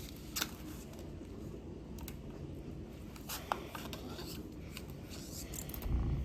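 Sheet of paper being folded and creased by hand: soft rubbing and rustling with a few sharp crinkles, and a dull low bump near the end.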